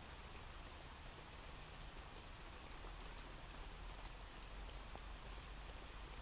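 Faint, steady recorded rain ambience: an even hiss of rainfall with a few separate drop ticks.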